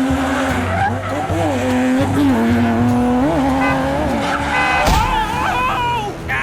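Car engine sound effect revving, its pitch rising and falling. A sharp hit comes about five seconds in, followed by high, wavering squeals.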